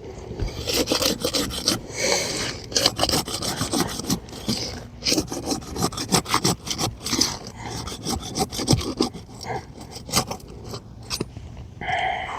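Asphalt roof shingle being unsealed: a tool pushed along under the shingle's edge, tearing through the tar sealant strip in a run of irregular rasping, scraping strokes.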